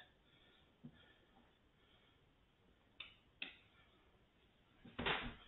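Pie dough being shaped by hand: mostly quiet, with a few faint clicks, then a dull thud about five seconds in as the dough ball is set down on a wooden cutting board.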